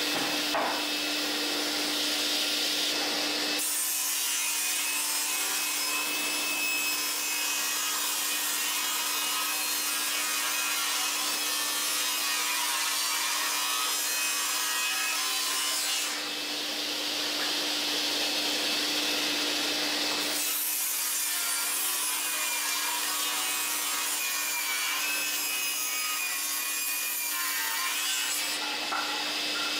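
Sliding table panel saw running with a steady motor hum as its blade rips through a thick wooden board. There are two long cuts, one of about twelve seconds and then one of about eight seconds, with the blade spinning free before, between and after them.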